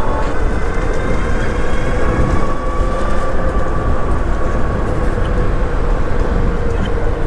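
Super73 RX electric bike on the move: wind rushing over the helmet or bike-mounted camera and road noise, with a steady whine held throughout.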